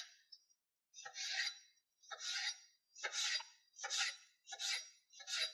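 A knife slicing through a peeled Galia melon on a cutting board, one rasping stroke per slice. There are about six strokes, roughly one a second, coming a little faster toward the end.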